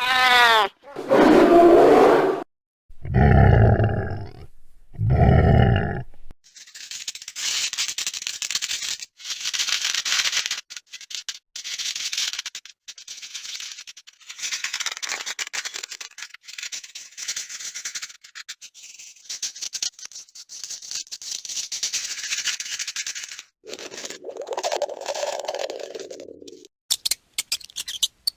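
A few seconds of loud growl-like animal sound effects, then mouse sound effects: a long stretch of high, scratchy rustling with many quick clicks. A lower sound comes in near the end, followed by sharp clicks.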